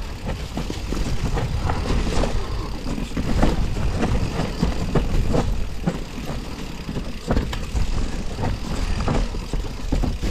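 Mountain bike riding fast down a rooty trail: a steady low rumble of ride noise with many irregular sharp knocks and rattles as the bike goes over roots and bumps.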